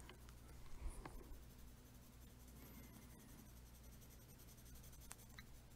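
Faint scratching of a colored pencil on paper, drawing a thin line with light pressure, over a low steady room hum.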